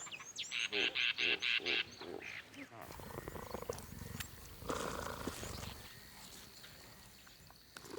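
Cheetahs at a waterbuck kill, making low growling sounds while they feed. In the first two seconds there is a quick series of about seven loud high calls; a low rumble follows.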